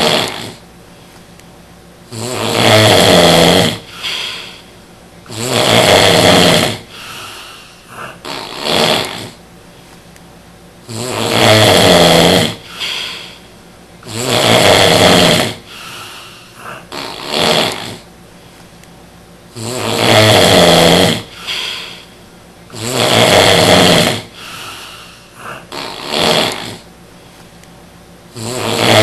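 Loud snoring from a drunk sleeper: a long snore about every three seconds, often in pairs, with shorter, quieter breath sounds in the gaps.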